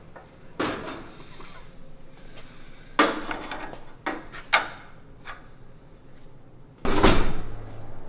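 Scattered knocks and clanks of hand tools and metal parts being handled on an engine during installation, with a heavier clunk about seven seconds in.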